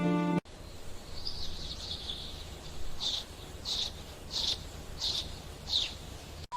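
A bird chirping: one short warbling phrase, then five short high chirps about two-thirds of a second apart, over a low steady background rumble.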